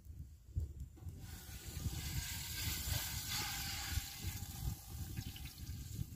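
Cooking oil poured from a plastic jug into a hot metal pot over a wood fire, hissing as it meets the hot metal. The hiss comes in about a second in, is strongest midway and fades near the end.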